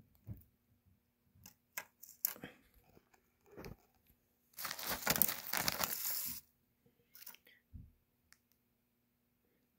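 Plastic zip-top bag crinkling loudly for about two seconds in the middle as bottle rockets are pulled out of it, with scattered light taps and clicks before and after as the rockets are laid on a wooden table.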